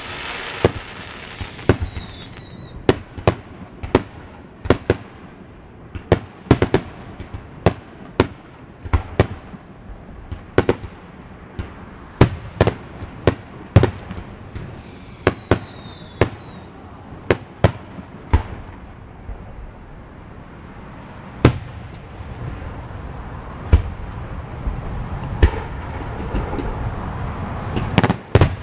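Fireworks display: aerial shells and salutes bursting in a quick, uneven run of sharp pops, about one or two a second, with a short lull about two-thirds through. Heard from a few hundred yards away, the salutes come through as small pops rather than the earth-shaking concussion felt in person. A falling whistle sounds twice.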